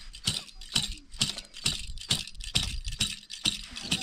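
Steady rhythmic rattling strokes, a little over two a second, each a short jingly clatter.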